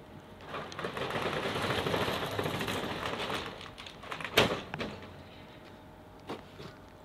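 Metal roller shutter door being raised, rattling for about three seconds and stopping with a sharp clank about four and a half seconds in, followed by a few lighter knocks.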